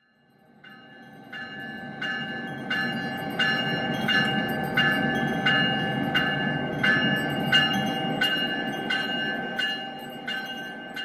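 Locomotive bell ringing steadily, about three strikes every two seconds, over the low rumble of a train. It fades in over the first couple of seconds.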